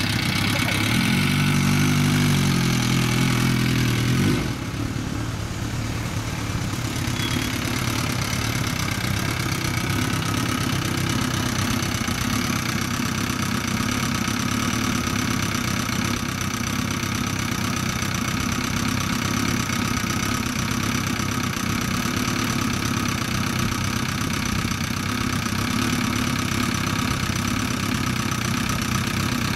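Kawasaki GPz1100's air-cooled inline-four running through a Kerker four-into-one exhaust: the revs rise and fall once in the first few seconds, then it settles to a steady idle.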